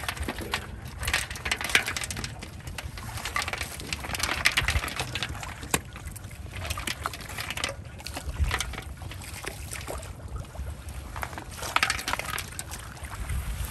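Shallow muddy water splashing and sloshing in irregular bursts as a plastic basket is scooped and dragged through it.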